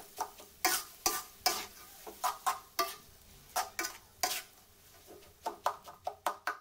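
Metal spoon scraping and knocking against a metal wok as fried rice vermicelli is tossed and stirred, in irregular strokes about two a second with a short pause just after the middle, over a faint sizzle.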